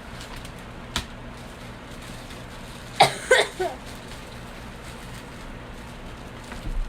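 A sharp click about a second in, then a person coughing in a quick run of three short coughs about three seconds in.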